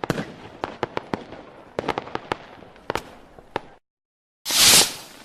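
Fireworks: a run of sharp, irregular cracks and pops for about three and a half seconds, then a brief dead gap, then one loud burst near the end that fades slowly.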